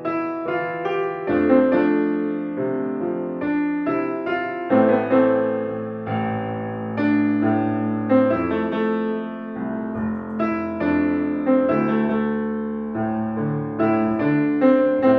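Piano music: chords and melody notes struck in a steady, flowing stream over held low notes, each note starting crisply and fading.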